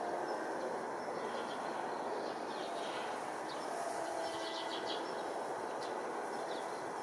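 Steady outdoor background rumble with no clear single source, and a few short bird chirps around three to four seconds in.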